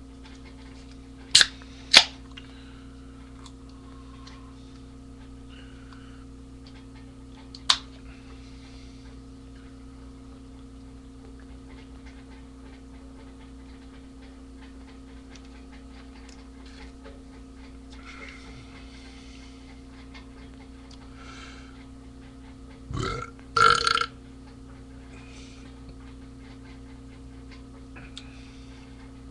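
A man's belch about 23 seconds in, in two parts: a low wavering start, then a louder rough burst. Two sharp knocks come just before two seconds in and another near eight seconds, over a steady electrical hum.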